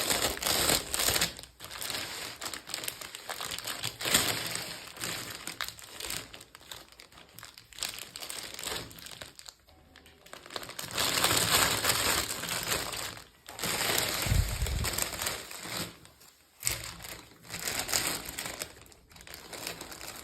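Packaging crinkled and crushed by hand while being opened, in irregular bursts with short pauses.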